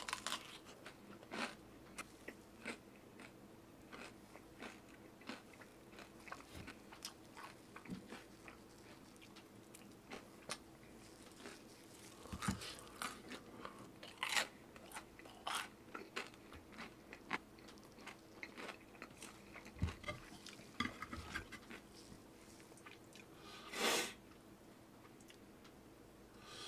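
Close-miked mukbang eating: a person biting and chewing crunchy food, with many short crisp crunches at irregular intervals and one louder, longer crunch near the end. A faint steady hum lies underneath.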